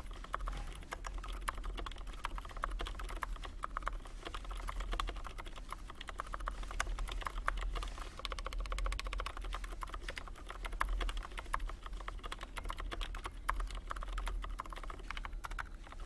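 Typing on the Darmoshark KT980 mechanical keyboard with its CNC aluminium case: a fast, continuous run of key clicks, rising and falling a little in loudness as the typing speeds up and slows.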